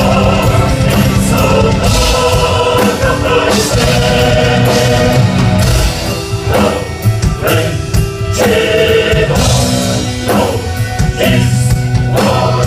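Gothic metal band playing live: distorted electric guitars and drums with vocals. A few sharp accented breaks come near the middle.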